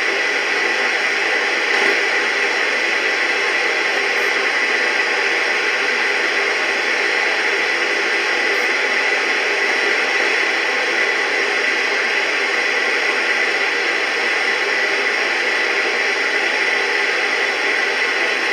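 Radio static: an even, unbroken hiss from a weather radio receiver, with a faint steady tone running through it.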